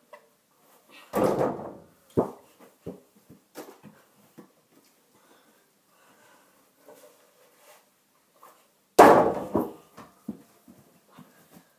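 Basketball shots thudding, two heavy hits about a second in and near the end, each followed by a few lighter knocks as the ball bounces away.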